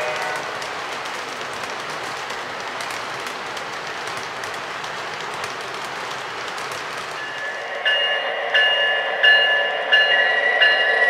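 O-scale model coal hoppers rolling past on the track with a steady rush of wheel noise. From about seven seconds in, a bell-like tone strikes again about every 0.7 s and grows louder as the locomotive approaches.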